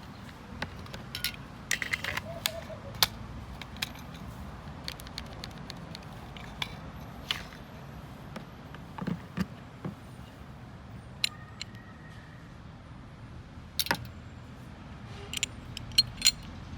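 Smith & Wesson 9mm pistol parts being handled during disassembly: irregular metallic clicks and clinks as the slide and small parts are worked and set down, a few sharper ones near the end, over a steady low background noise.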